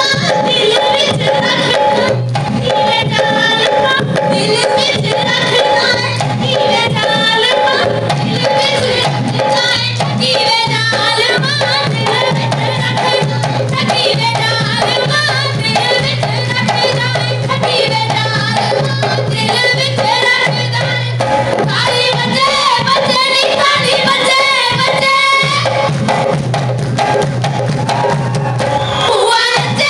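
Punjabi folk music for a Giddha dance: women singing with a steady drum beat and other folk percussion.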